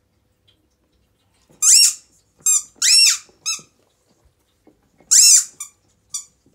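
A squeaky dog toy squeezed in a Siberian husky's jaws, giving short, high squeals that rise and fall in pitch: four in quick succession, then after a pause a loud one and a short one.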